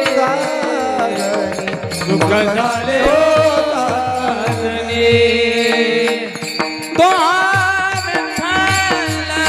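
Marathi devotional bhajan: male voices singing a line of the abhang over a pakhawaj drum, whose deep strokes slide down in pitch, with sustained accompanying notes held underneath.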